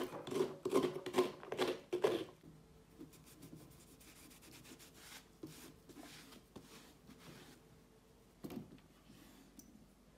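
Scraping on a hollowed pumpkin: about six loud, quick scraping strokes in the first two seconds, then fainter rubbing strokes, and a single short knock about eight and a half seconds in.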